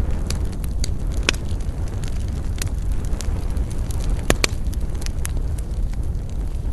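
Bonfire burning with a steady low roar and frequent sharp, irregular crackles and pops of burning wood.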